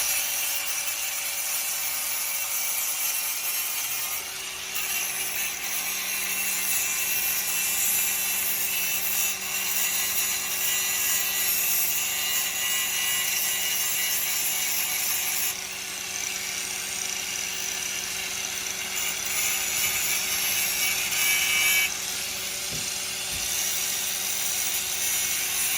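A power tool running steadily under load with a hissing grind over a steady motor hum, its sound shifting a few times as the load changes.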